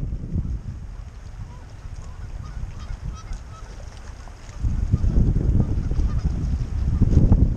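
Wind buffeting the microphone in gusts, growing louder past the middle, with a few faint goose honks in the first half.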